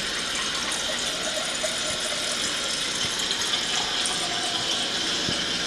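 Refrigerator door water dispenser running a steady stream of water into a drinking glass, as water is run through a newly fitted inline water filter.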